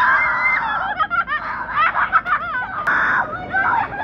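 Children shrieking and laughing in excitement, with high, wavering screams one after another.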